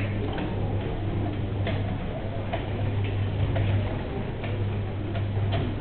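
Jean Tinguely's kinetic sculpture Requiem pour une feuille morte (1967) running: its motor-driven wheels and wires turn with a steady low hum and irregular clicking, about one to two clicks a second.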